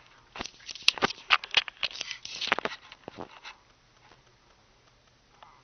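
A quick irregular run of short rustling clicks for about three and a half seconds, then near quiet.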